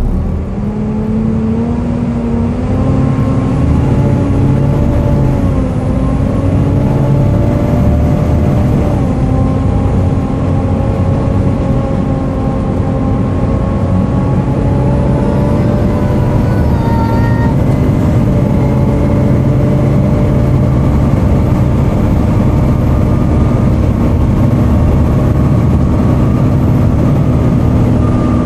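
Volvo B7TL double-decker bus under way, its cooling fan running loud with a steady hoover-like whine over the engine and road rumble. The whine rises in pitch over the first few seconds, then holds fairly steady with small dips.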